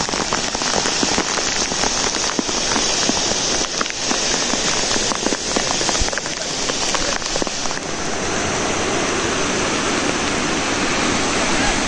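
Water spilling in a thin sheet over a flooded dam's spillway crest, a steady splashing patter like heavy rain. About eight seconds in, the fine splashing gives way to a smoother rush of churning water at the foot of the spillway.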